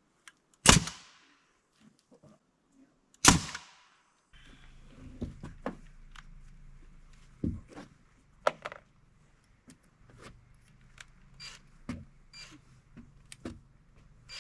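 Two loud, sharp strikes on the timber framing, about two and a half seconds apart, each with a short ring. From about four seconds in, a low steady hum runs under a scatter of quieter knocks.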